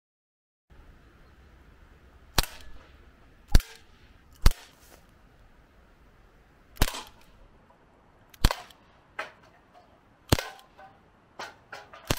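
Air pistol fired repeatedly at metal drink cans: about seven sharp shots at irregular intervals, with fainter clicks and short clatters between them.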